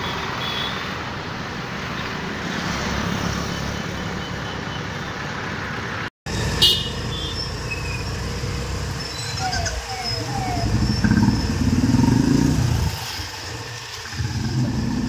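Steady road noise for the first several seconds. Then a group of motorcycles, led by a single-cylinder Royal Enfield Bullet, ride slowly past with their engines running, rising and falling.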